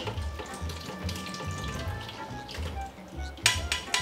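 Beans and their liquid pouring from a frying pan into a mesh strainer over the sink, splashing as the liquid drains through, with a few sharp knocks of pan or strainer near the end. Background music with a steady beat plays underneath.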